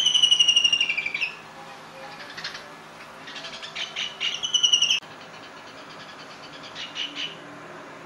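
White-throated kingfisher calling: a loud, rattling trill that falls slightly in pitch for about a second, a second trill from about three seconds in that cuts off suddenly, and a fainter chatter near the end.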